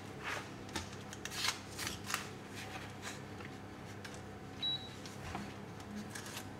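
Silicone spatula spreading and smoothing a thick pistachio filling in a puff-pastry-lined tart tin: a series of short, soft scraping strokes, most of them in the first half. A brief high beep sounds just before five seconds in.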